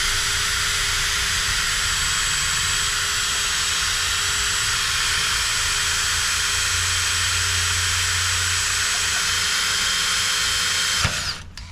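Power drill running steadily with a constant whine, boring a hole for a chicken nipple waterer through a PVC pipe; it stops abruptly near the end.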